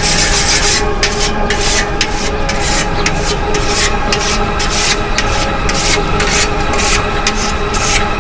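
A whetstone being drawn along a scythe blade in quick, repeated scraping strokes, about three a second, with steady background music underneath.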